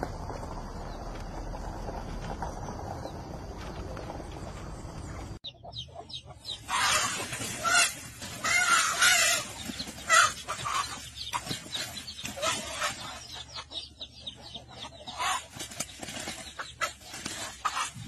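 A steady hiss for about five seconds, then a chicken clucking and squawking in loud, rapid, irregular calls.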